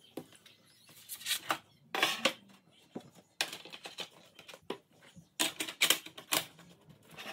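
Irregular clicks, taps and short rustling sounds, like small objects being handled and moved about.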